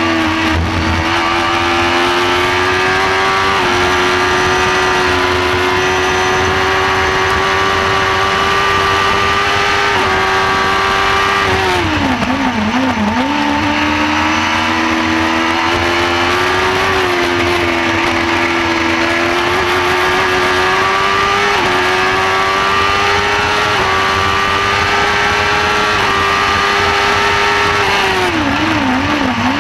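Onboard sound of a shortcar's motorcycle engine racing at high revs, with quick upshifts through the gears. About twelve seconds in, and again near the end, the revs drop and wobble as the car brakes and downshifts with throttle blips for a corner.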